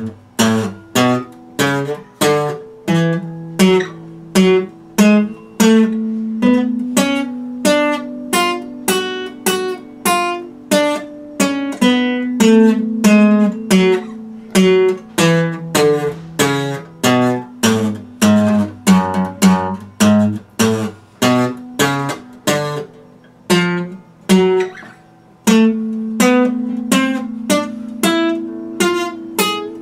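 Steel-string acoustic guitar being picked: a run of separate plucked notes and chords at about two a second, ringing over held bass notes.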